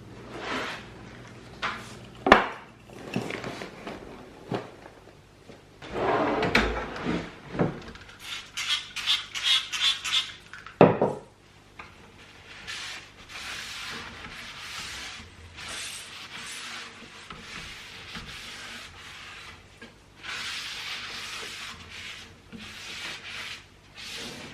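Household objects being handled during cleaning: wooden and dish-like knocks and clatter as things are picked up and set down, then a long stretch of rubbing, like a surface being wiped or scrubbed.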